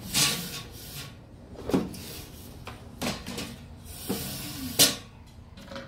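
Rustling and scuffling as a capuchin monkey scrambles about close to the microphone, with about four short bumps, the sharpest a knock near the end.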